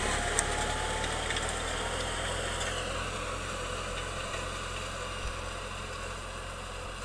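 New Holland farm tractor's diesel engine running steadily under load as it pulls a disc harrow through dry soil, slowly growing fainter as the tractor moves away.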